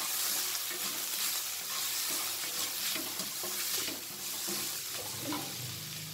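Onions and green peas with ground spices sizzling in hot oil in a stainless steel kadai, stirred and scraped with a wooden spatula.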